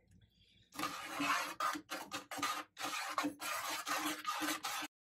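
Metal tongs scraping against a metal sauté pan while stirring pureed tomatoes into the sauce. An irregular run of scratchy scrapes begins just under a second in and stops shortly before the end.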